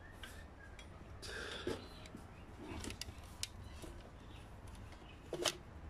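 Faint handling noise from a phone being moved and set in position: scattered light clicks and knocks, with one short, louder knock near the end.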